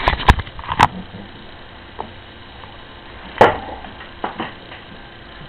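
Several short, sharp clicks and knocks: a quick cluster in the first second, a single louder knock about three and a half seconds in, and a few faint ticks after it.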